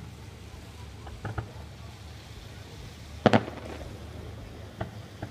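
Distant fireworks going off: two faint pops, then a loud double bang about three seconds in, and two smaller bangs near the end.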